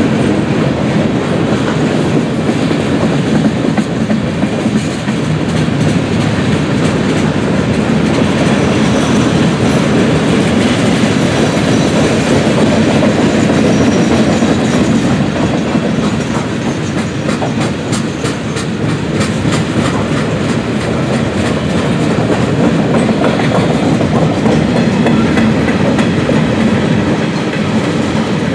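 Freight cars of a mixed freight train rolling past: a steady, loud rumble of steel wheels on rail with clickety-clack over the rail joints, and a run of sharper clacks around the middle.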